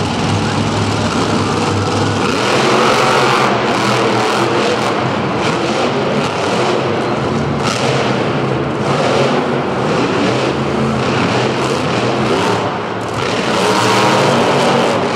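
Two monster truck engines, idling at first, then revving hard about two seconds in and running loud at high throttle around the course. Near the end the engine note drops briefly, then revs up again.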